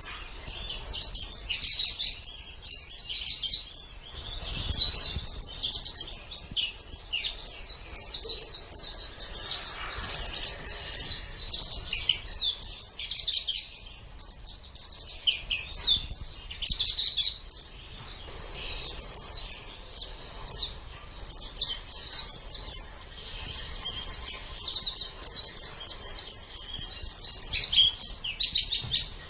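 Pleci (white-eye) singing: a long, rapid run of high, thin twittering notes with a brief lull about two-thirds of the way through.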